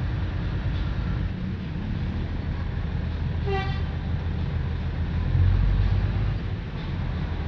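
KRDI Madiun Jaya diesel railcar train running with a steady low engine rumble, sounding one short horn toot about three and a half seconds in. The low rumble swells louder for about a second shortly after the toot.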